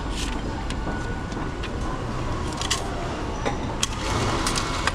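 Background hubbub at a ticket machine: a steady low rumble with scattered short clicks and taps.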